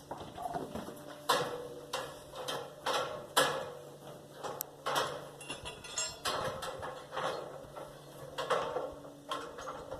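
Irregular knocks and clanks of hand-tool work, about one or two a second, each with a short ring, over a faint steady hum.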